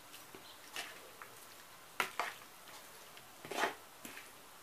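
Spoon clicking and scraping against a plastic bowl as chopped cooked beef foot, onion and pickled chiles are mixed: a few light, separate clicks, the sharpest about two seconds in.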